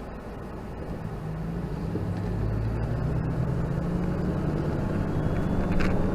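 Engine and road noise of a moving Ford E350 V10 motorhome, heard from a dash camera in the cab. A steady low engine hum grows gradually louder, and a sharp click comes near the end.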